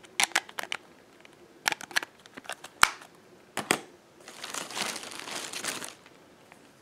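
Sharp plastic clicks and taps as a Nokia 1208 mobile phone's back cover is handled and fitted and the phone is set down, then a thin plastic carrier bag crinkling for about two seconds as the next phone is drawn out of it.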